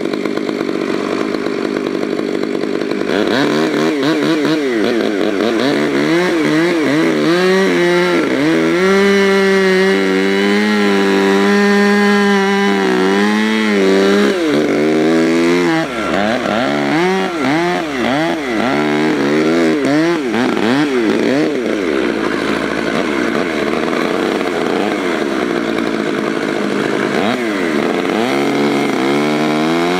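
Two-stroke chainsaw cutting into the trunk of a standing beech tree to fell it, its engine note rising and falling as the saw works under load, held steady at high revs for several seconds in the middle.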